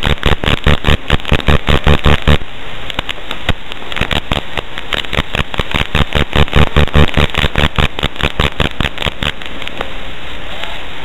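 FPV racing quadcopter's motors and propellers, a rough buzz that pulses rapidly, about seven times a second, in two loud stretches as the drone rolls through its manoeuvres, with crackle.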